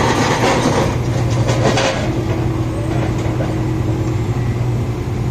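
Sumitomo 490 excavator's diesel engine running steadily, heard from inside the cab, with a hiss over the first couple of seconds that then fades back into the engine sound.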